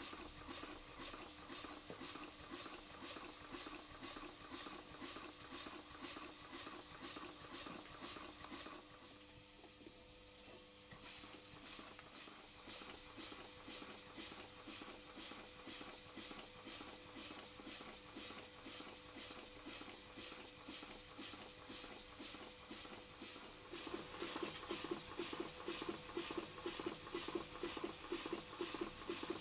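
Model Lincoln cross-compound steam engine running on compressed air: an even rhythm of hissing exhaust beats from its cylinders, briefly quieter about nine seconds in.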